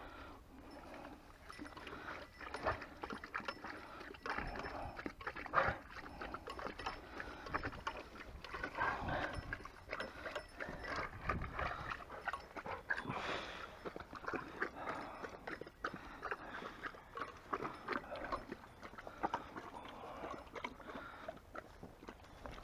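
German shorthaired pointers slurping and lapping, with irregular wet licking and mouth noises.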